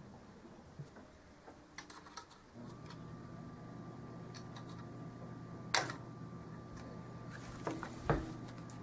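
Scattered clicks and knocks of a Norinco SKS rifle and its parts being handled on a table. The sharpest knocks come about six and eight seconds in, the second with a dull thud.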